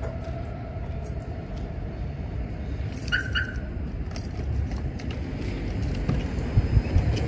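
Outdoor street ambience: a steady low rumble, with a brief double chirp about three seconds in.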